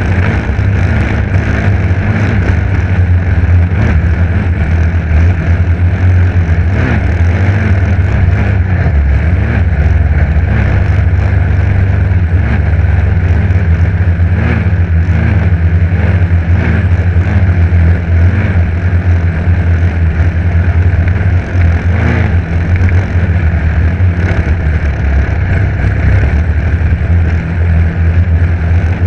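Dirt bike engine running steadily and loud while riding a bumpy forest trail, heard from a GoPro mounted on the bike.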